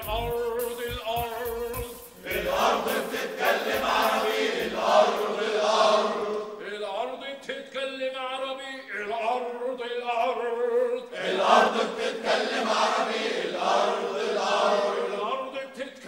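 A group of men chanting a protest slogan in unison, the same phrase repeated over and over.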